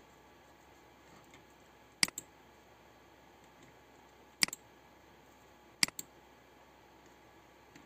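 Computer mouse button clicked three times, about two seconds apart; each click is a sharp press followed at once by a softer release.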